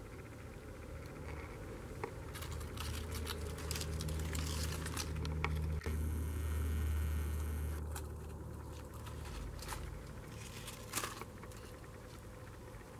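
Shredded corrugated cardboard worm bedding rustling, crinkling and scraping as a hand shifts the pieces aside, in irregular crackles. A steady low hum runs underneath, loudest in the middle.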